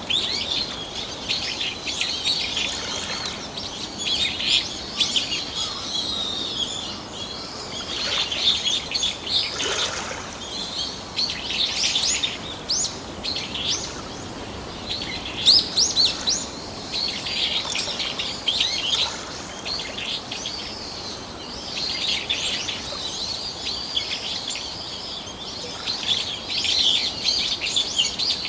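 Birds chirping and singing, many quick high notes overlapping without a break, over a steady soft background hiss.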